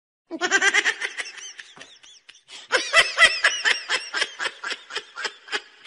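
A person laughing hard. It opens with a high-pitched vocal outburst, then about halfway through breaks into a fast run of 'ha' sounds, about five a second.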